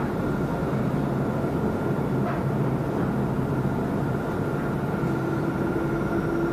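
Dubai Tram (Alstom Citadis) car running along its track, heard from inside the cabin: a steady low hum with a thin, steady high whine over it. There is a short click about two seconds in, and a lower steady tone joins near the end.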